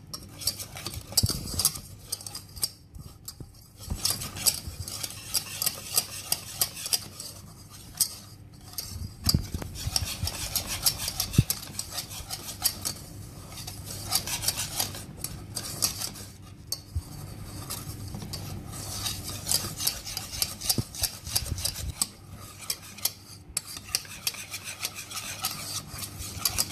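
Wire whisk beating egg yolks and corn flour in a metal saucepan: fast, continuous clicking and scraping of the wires against the pan's sides and bottom, with a few short pauses.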